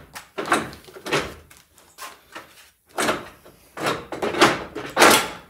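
Front bumper of a Jeep Wrangler JL scraping and knocking in a series of short jolts as it is tugged on. It is caught on something and will not slide off its mounts.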